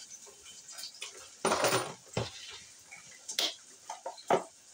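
Dishes and cutlery clinking while food is served: a louder half-second rattle about a second and a half in, then a few sharp separate clinks.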